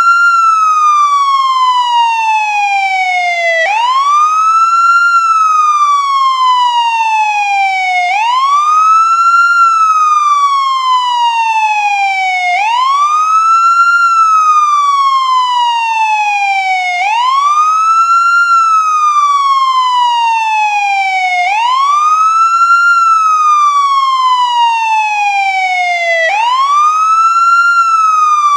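American ambulance wail siren cycling continuously: each cycle rises quickly in pitch, then falls slowly, and the next starts at once, about every four and a half seconds.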